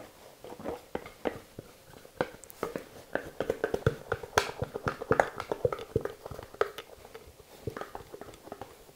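Plastic dough scraper scraping and knocking against the inside of a glass mixing bowl, a run of quick irregular clicks and scrapes, as risen yeast dough is worked loose from the bowl.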